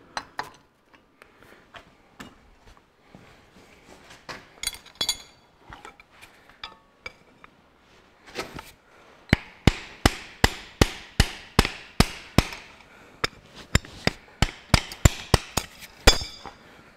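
Small hammer tapping on a bar set against a diesel injector in a Ferguson 23C cylinder head, jarring the rusted-in injector loose. There are a few scattered metal clinks first, then from about nine seconds in a run of sharp, evenly spaced taps, about three a second, with one short pause.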